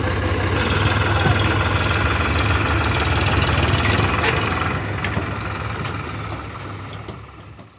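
Eicher 557 tractor's diesel engine running steadily, fading out near the end.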